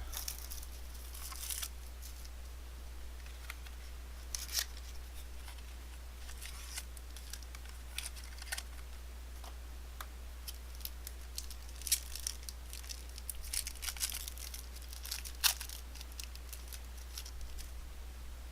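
Cardboard packaging being torn open and crinkled, and trading cards being handled: scattered short tears, clicks and rustles over a faint steady low hum.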